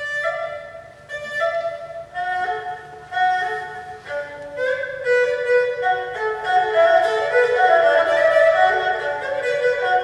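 Solo erhu played with the bow: short, quick notes that come in sharply after a pause, then grow louder and busier from about halfway through.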